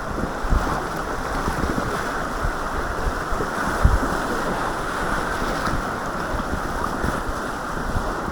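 River whitewater rushing steadily around a kayak, with a few low thumps of wind buffeting the microphone.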